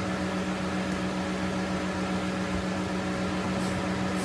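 Steady low electrical or mechanical hum with a constant hiss: room tone, with no other sound standing out.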